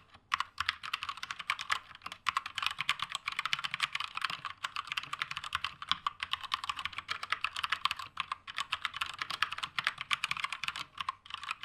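Keychron K2 mechanical keyboard being typed on quickly and continuously, a dense run of uneven key clacks as a sound sample of its switches.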